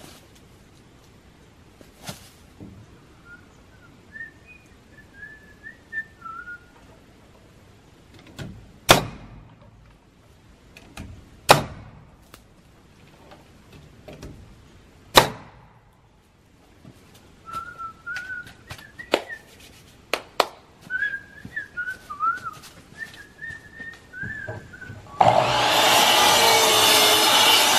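Pneumatic nail gun driving nails into board-and-batten wood siding, a sharp shot every few seconds, with whistling in the gaps between shots. Near the end a sliding miter saw starts suddenly and runs loudly.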